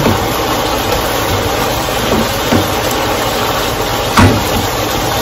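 Strips of flank steak sizzling steadily in hot oil in a wok as they brown, stirred with a wooden spoon, with a brief louder knock about four seconds in.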